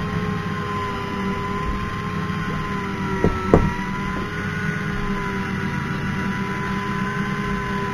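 Electric deep-drop fishing reel's motor whining steadily as it winds in line under the load of a hooked squid. The pitch wavers and sags briefly with a knock about three and a half seconds in.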